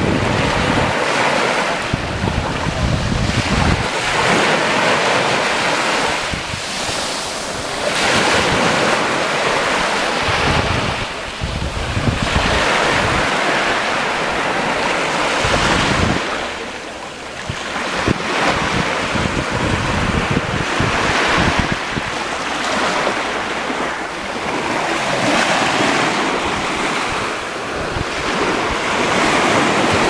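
Small sea waves breaking and washing up a sandy beach, the surf swelling and ebbing every few seconds. Wind buffets the microphone with low rumbles.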